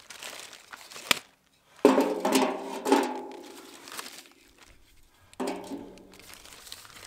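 A plastic firewood bag rustling and crinkling while logs are dropped one at a time into a perforated steel fire-pit drum. Each log lands with a clang that rings for about a second: one about two seconds in, another about three and a half seconds later, with lighter knocks between.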